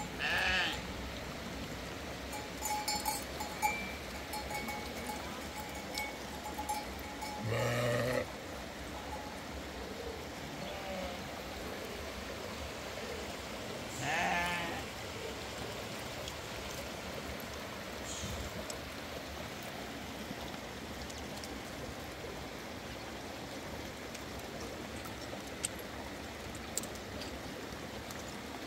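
Livestock bleating a few times over steady background noise; the loudest call comes about eight seconds in and another wavering one around fourteen seconds.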